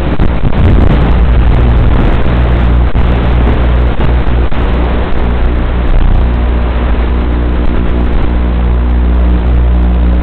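Small quadcopter drone's motors and propellers running, heard close up from on board: a loud steady buzz with a low hum underneath.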